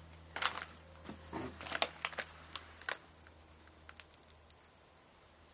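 A run of light clicks and crunches over about three seconds, then a quieter stretch with only a faint low hum.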